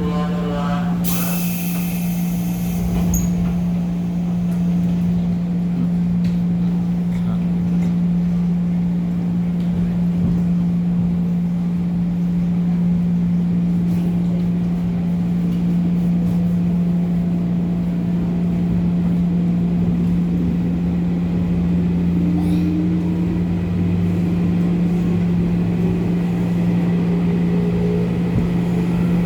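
Running sound inside a JR 205 series electric motor car as the train pulls away and accelerates: a steady low hum over wheel and track rumble, with a faint whine rising in pitch after about twenty seconds.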